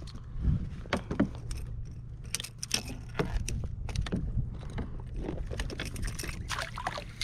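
Scattered clicks, rattles and light knocks from fishing gear being handled in a plastic kayak, including a jar of Gulp bait, over a steady low rumble.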